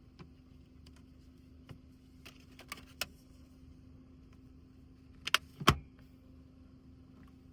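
A few light clicks and taps, then two sharp knocks close together a little after the midpoint, the second a heavier thud, over a steady low hum: objects being handled.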